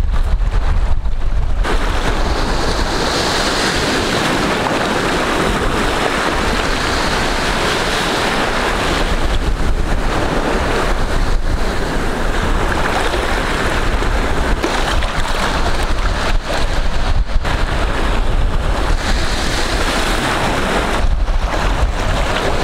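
Shallow sea surf washing and breaking around the shore, a steady rushing noise with wind buffeting the microphone.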